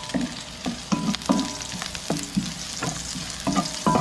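Garlic, onion and ginger sautéing in hot oil in a wok, sizzling steadily, while a spatula stirs them and clinks against the pan about three times a second, each clink ringing briefly.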